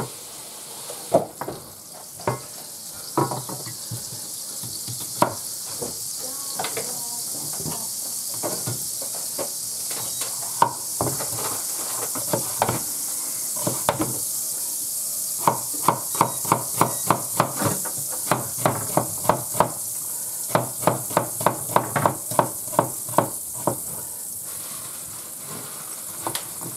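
Minced meat sizzling steadily in a frying pan. Kitchen knocks sound over it: a few scattered ones at first, then in the second half a quick regular run of about three a second with a short pause.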